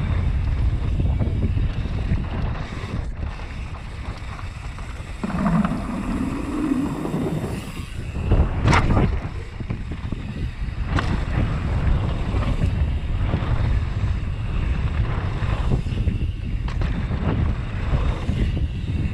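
Mountain bike descending a dirt trail, heard from a bike-mounted action camera: wind rushing over the microphone and the tyres rumbling on the dirt, with the bike clattering over bumps and a sharp knock about eight and a half seconds in.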